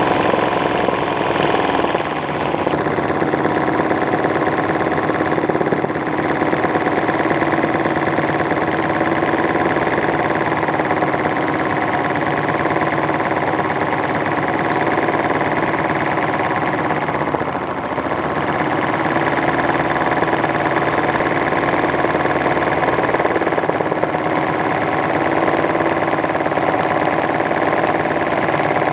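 Sewing machine running fast and steadily, its needle stitching gold metallic thread through fabric stretched in a hand-guided embroidery hoop (free-motion machine embroidery). The level dips briefly twice, about two seconds in and just past halfway.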